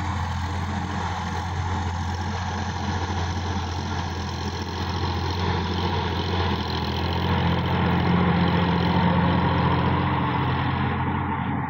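Sonalika DI-50 RX tractor's diesel engine running steadily under load, with its rear-mounted rotary tiller churning dry soil. The sound swells somewhat about seven seconds in and eases toward the end.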